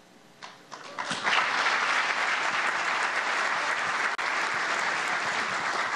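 Audience applause, beginning with a few scattered claps and filling out into steady clapping about a second in.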